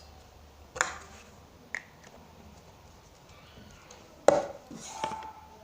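Slime being squeezed and stretched by hand, giving a few sharp pops and clicks: two light ones in the first two seconds and a louder one about four seconds in.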